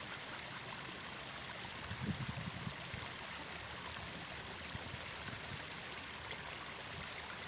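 Steady rushing noise of riverbank ambience, heard like flowing water, with brief low rumbles about two seconds in.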